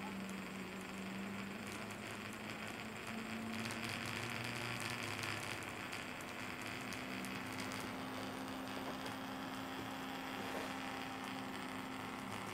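Stepper motors driven by an Arduino GRBL setup through a three-axis CNC driver board, turning with a steady low hum whose pitch steps up a couple of times as the step rate changes. A higher hiss joins for a few seconds from about three seconds in.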